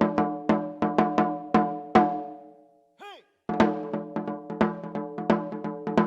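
Katsugi-oke daiko (shoulder-carried barrel drum) played in a quick, uneven rhythm of ringing strikes, about three a second. About two seconds in the playing breaks off for roughly a second, with one brief rising-and-falling call in the gap, then the drumming resumes.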